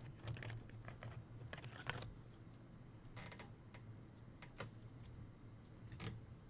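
Soft clicks and rustles of trading cards being handled and flipped through, over a faint steady low hum.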